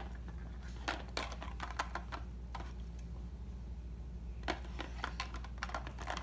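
Plastic Lego pieces clicking and clattering as they are handled and pressed back onto a Lego boat model: scattered, irregular clicks, with a lull in the middle and a busier run near the end, over a steady low hum.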